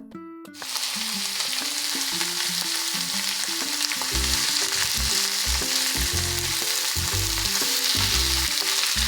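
Food frying in hot oil: a steady sizzle that starts about half a second in, with a simple background tune underneath.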